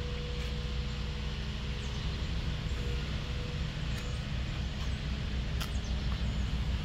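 A steady low rumble, with a few faint, short, high chirps about four seconds in and again a little later.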